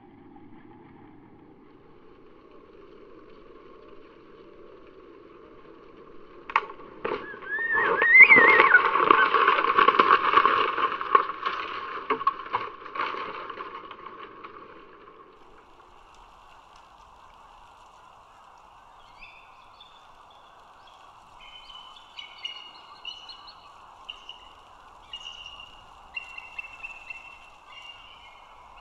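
A loud rushing noise with several sharp knocks and a brief squeal a third of the way in. Then, over a faint steady hum, distant adult bald eagles give a series of high, chittering calls to warn off an intruding young eagle.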